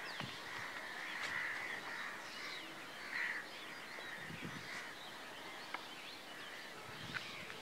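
Many crows cawing, faint and overlapping, the loudest call about three seconds in, over a light hiss of background noise.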